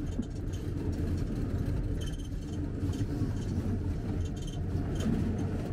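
Tour minibus engine and road noise heard from inside the cabin: a steady low rumble, with a few faint light rattles.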